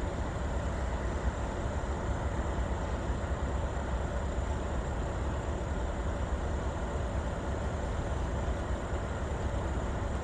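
Steady low rumble of a long freight train creeping past at low speed, with no distinct knocks, horn or squeal.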